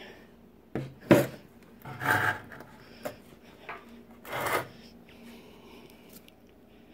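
Handling of a toy steam engine on its wooden mounting board: a couple of sharp knocks on wood about a second in, then two short rubbing scrapes, one about two seconds in and one about four and a half seconds in.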